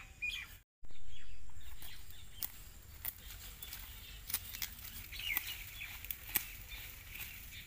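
Sickle cutting dry jantar (sesbania) stalks at the base: sharp, irregular snaps about once a second, with rustling of the stalks. Small birds chirp faintly now and then.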